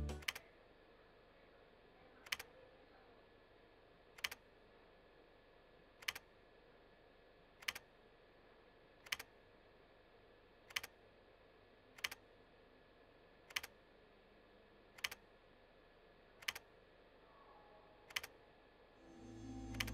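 Twelve quiet single clicks on a computer, each a quick double tick of press and release, about every one and a half seconds, each one stepping to the next photo in a Mac image viewer. Faint hiss between the clicks; music fades in at the very end.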